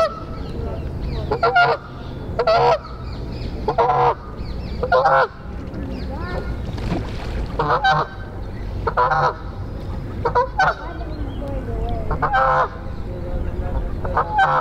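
Goose honking repeatedly, short loud honks about once a second.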